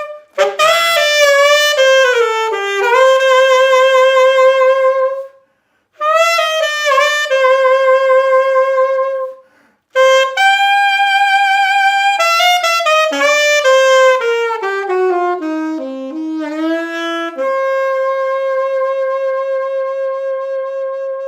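Unaccompanied solo saxophone playing a slow melody in three phrases with short breaks between them, with vibrato on the held notes. It ends on one long steady note.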